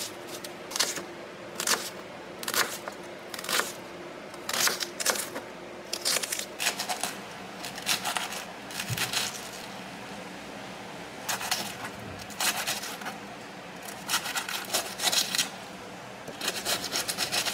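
Kitchen knife cutting through onion and lettuce on a plastic cutting board: irregular runs of crisp cuts, each stroke tapping the board.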